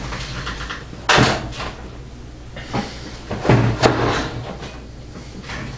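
Clunks and knocks of a computer case's metal side panel being handled and taken off: one sharp knock about a second in and a few more in the middle.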